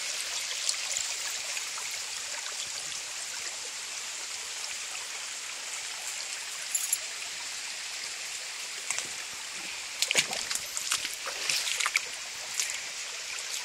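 Shallow creek water running and trickling over rocks, a steady hiss. A few short, louder sounds break in, bunched about two-thirds of the way through.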